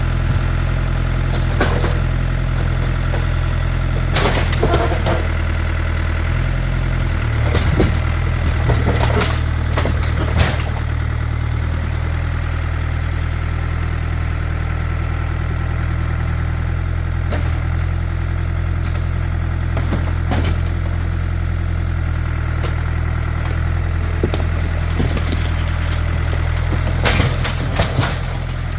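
Farm tractor engine running steadily, its note shifting about a quarter of the way in, with scattered sharp knocks and crunches: the grapple working on a VW Beetle's body.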